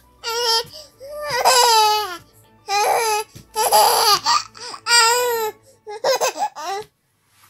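Baby of about six to seven months laughing in about six high-pitched squealing bursts, stopping shortly before the end.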